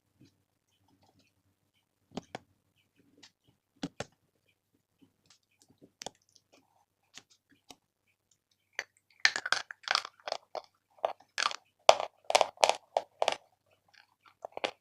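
Someone biting and chewing a piece of Big Love chalk: a few scattered crisp crunches, then about nine seconds in a loud run of dense crunching for several seconds before it thins out.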